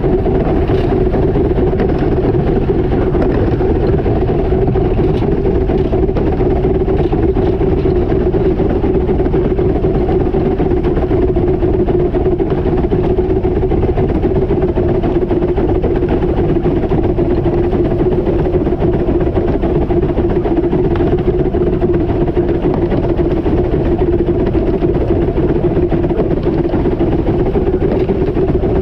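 15-inch gauge steam locomotive River Irt running along the line, heard from on board: a steady, unbroken rumble with a constant hum.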